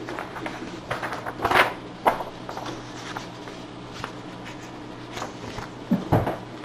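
Open-microphone room noise: a steady low hum with a few brief rustles and knocks. The loudest rustle comes about a second and a half in, and a low thump comes near the end.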